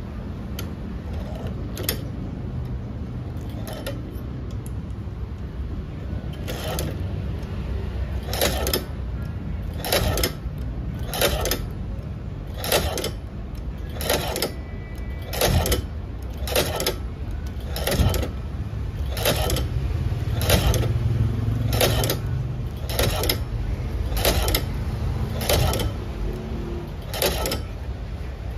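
Shoe-repair patcher sewing machine stitching the rubber sole of a sneaker, one stitch at a time: a mechanical clack with each needle stroke, a few scattered at first and then a steady rhythm of about one stitch every second and a quarter, over a low steady hum.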